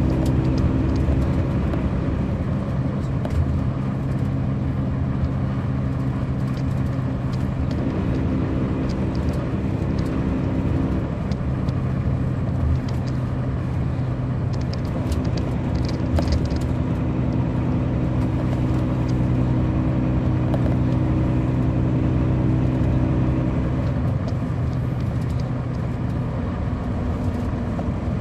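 Caterpillar C13 ACERT diesel engine of a 2007 MCI D4500CL coach running, heard from inside the bus. The engine drones steadily, and its note shifts a few times.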